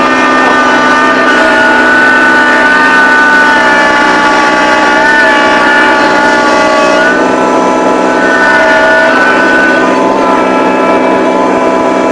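Kubota BX1860 compact tractor's small three-cylinder diesel engine running steadily at working speed, its pitch shifting slightly now and then.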